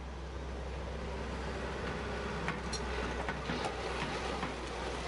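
Hitachi EX150 excavator's four-cylinder turbocharged diesel engine running steadily, with a few light clicks and knocks around the middle.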